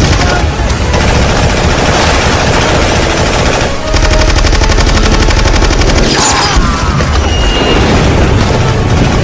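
Sustained rapid automatic gunfire in a war-film battle mix, fast volleys from machine guns and submachine guns, with a brief lull just before four seconds in.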